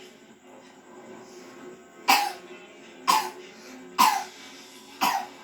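A child coughing four times, about once a second, in short sharp coughs.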